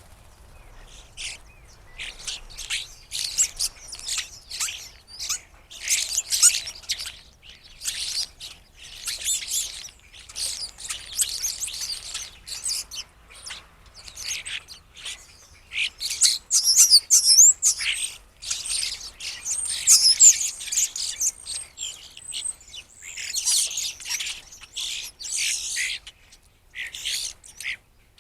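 A flock of blackbirds calling over one another in a dense, continuous chatter of quick high chirps and squeaky calls, with brief lulls.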